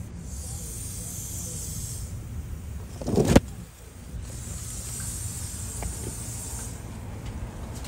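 Road traffic: a steady low rumble with passing-car hiss that swells and fades. A brief loud bump about three seconds in.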